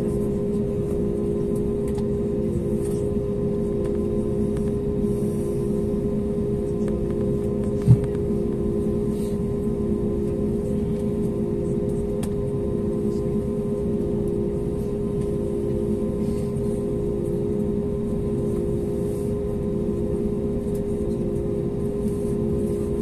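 Steady drone of an Airbus A320neo heard from inside the passenger cabin on the ground, with several steady tones, one of them pulsing on and off. A single short thump comes about eight seconds in.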